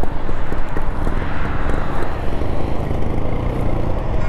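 Motorcycle riding noise: loud, steady wind rush on the microphone with the bike's engine running underneath.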